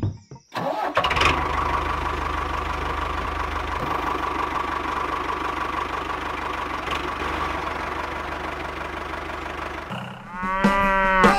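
Small electric motor and gearbox of a miniature toy tractor running steadily as it drives along, a constant whine over an even low rhythmic hum. Near the end it stops and a cow's moo follows.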